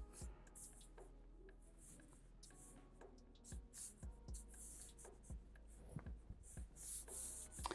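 Black felt-tip marker drawing on paper: faint, short scratching strokes, with a few soft taps.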